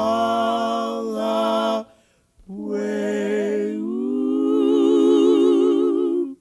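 A small group of people singing without accompaniment, holding long notes with vibrato. There is a short break about two seconds in before the next long held phrase.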